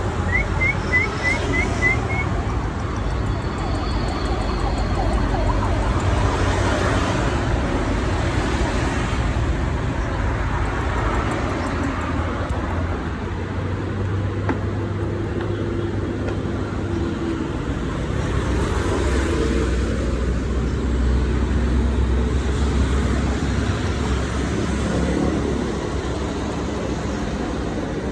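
Road traffic noise: a steady rumble of vehicles that swells and eases as they pass.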